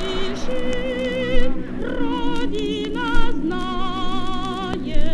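Singing with long held notes and heavy vibrato, over musical accompaniment, played back from a vinyl flexi-disc.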